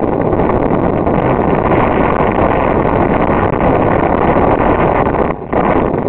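Loud, steady rushing noise of an off-road vehicle on the move, with wind buffeting the microphone; it dips briefly about five seconds in.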